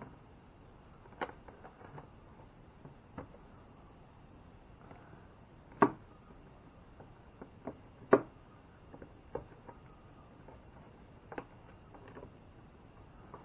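Scattered light clicks and knocks of hands fitting a small nut and a volt meter into a kayak's deck, with two sharper knocks about six and eight seconds in.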